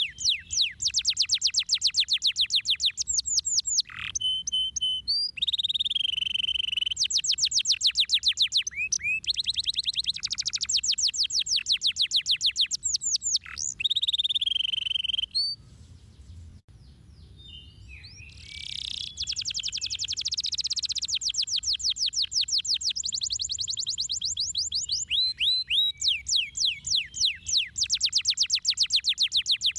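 Domestic canary singing: long runs of rapid, fast-repeated trill notes, broken by a few held rolling notes and a pause of about three seconds midway.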